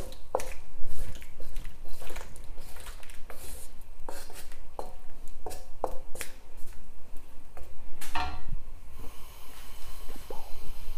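Wooden spatula scraping and knocking against a wok as chicken and potatoes are stirred in a reducing sauce, in irregular clicks and scrapes. About eight and a half seconds in, the stirring stops and a steady sizzling hiss from the sauce bubbling on high heat is left.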